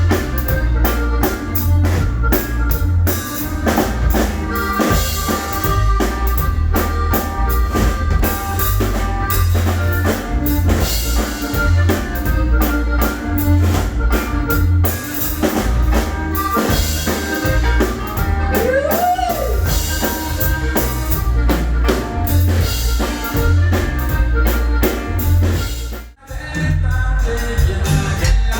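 Norteño band music with drum kit and heavy bass, played through the RCF HDL20-A line-array PA. It cuts out abruptly for a moment about two and a half seconds before the end, then resumes.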